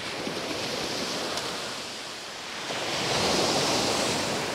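Waves washing on a shingle beach: a steady rush of surf that swells louder about three seconds in.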